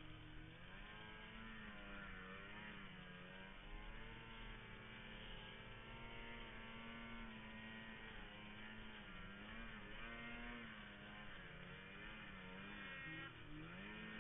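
Ski-Doo snowmobile engine running under load in deep snow, its pitch rising and falling as the throttle changes.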